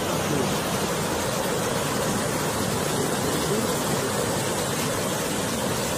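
Muddy floodwater of a swollen river rushing over rocks: a steady, even wash of water noise.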